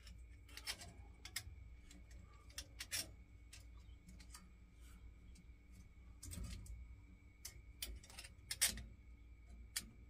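Scattered small clicks and taps from hands handling wires and a plug connector at a gas boiler's control panel, irregularly spaced, over a faint steady low hum.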